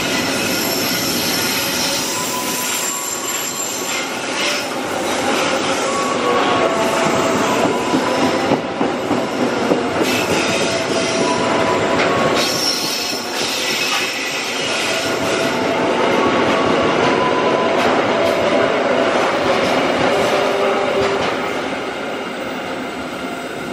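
Container freight train's flat wagons rolling past close by, their wheels squealing in many short high tones over a dense rumble and clatter. The sound sinks near the end as the last wagon pulls away.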